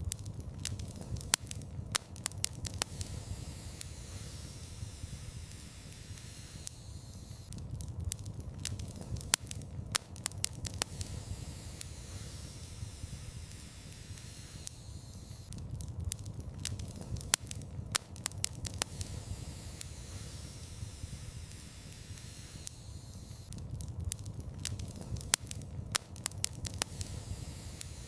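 Wood fire burning in a fireplace: sharp crackles and pops come in clusters about every eight seconds over a steady low rumble and hiss.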